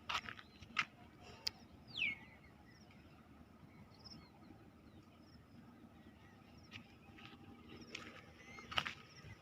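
Quiet outdoor ambience with a single falling bird whistle about two seconds in, and a few short clicks and knocks near the start and again near the end.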